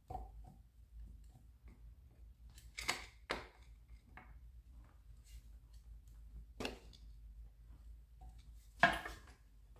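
Hand wrench clinking against rusty engine bolts and metal while loosening them: a few sharp metallic clicks, spread out, the loudest near the end.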